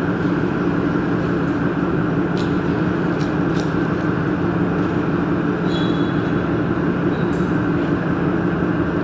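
Steady mechanical drone of running machinery, an even hum with a few faint clicks over it.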